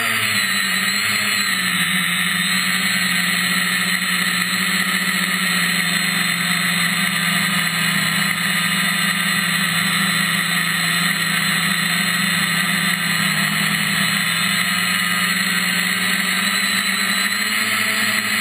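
Multirotor drone's MT2206 brushless motors and propellers whining at a steady pitch while cruising, as picked up by its onboard camera.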